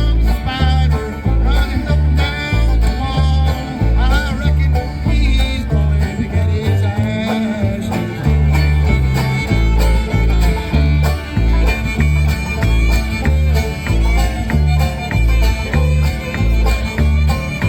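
Old-time string band playing an instrumental break: a fiddle carries the lead over strummed and picked strings, with bass notes pulsing steadily on the beat.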